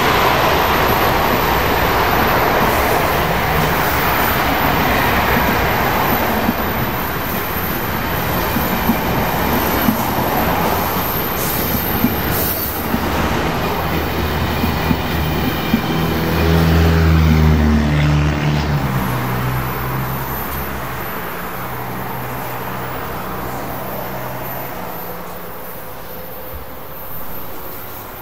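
Amtrak passenger train's stainless-steel cars passing at speed close by, a steady rush of wheel and air noise with scattered clicks of wheels over rail joints. A deep rumble swells about two-thirds of the way in, then the sound fades as the train moves off.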